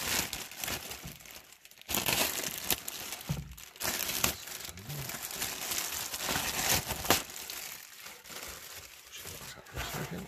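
Clear plastic packaging bag crinkling and rustling in irregular bursts as hands pull it open and slide out the fabric shooting rest bags inside.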